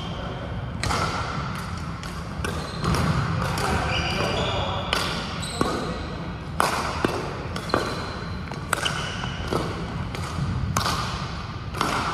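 Badminton rackets hitting shuttlecocks in several rallies at once, with sharp hits every half second to a second, and shoes squeaking now and then on the sports hall floor. Voices carry in the background.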